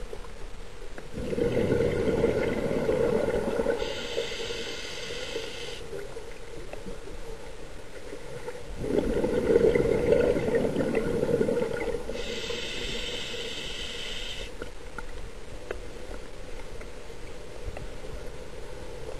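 Scuba diver breathing through a regulator underwater: twice over, a long rush of exhaled bubbles followed by the high hiss of an inhalation, with a pause between breaths.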